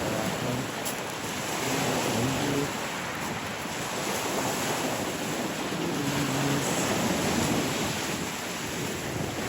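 Lake Ontario waves washing onto a sandy beach, a steady surf with gentle swells in loudness, with some wind on the microphone.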